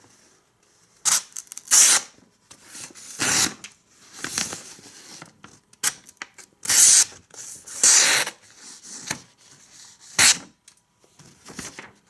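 A sheet of paper being sliced by the short knife blade of a Coast C5799B multitool: several scratchy cutting strokes, each a second or less. The blade catches now and then, especially when starting a cut, which shows its edge is not very sharp.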